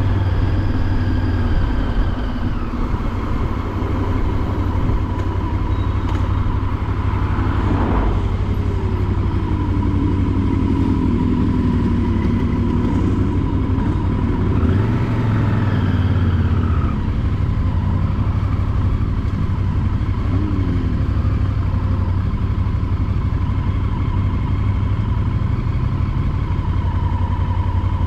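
A motorcycle engine runs steadily at road speed, heard from the rider's own bike. Other vehicles pass with a falling pitch about eight seconds in, and oncoming motorcycles pass around fifteen seconds in.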